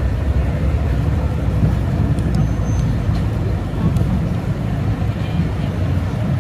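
Steady low rumble of riverside city ambience, with engine noise from traffic and passing boats. A brief high chirp sounds about two and a half seconds in.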